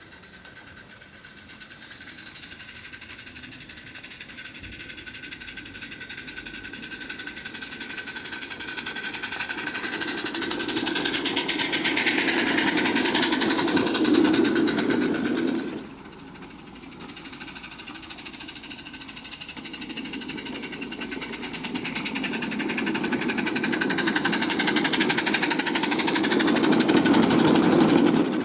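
A 16mm-scale Roundhouse Billy live steam locomotive and its train running on garden railway track: a fast, even chuffing and clatter of small wheels that grows louder as the train comes close. It drops away suddenly about halfway through, then builds up again.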